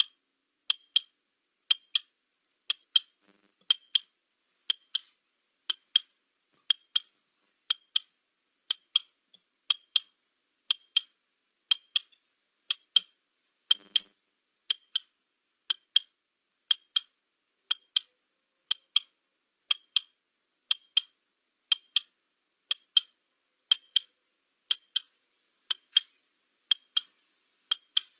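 Clock ticking sound effect for a 30-second countdown timer: sharp, even ticks about once a second.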